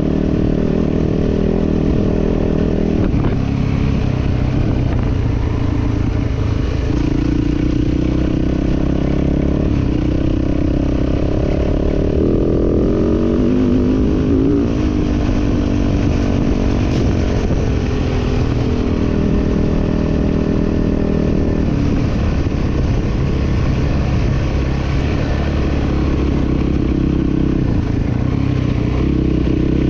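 Motocross dirt bike engine running under way, its pitch rising and falling over and over as the throttle opens and closes.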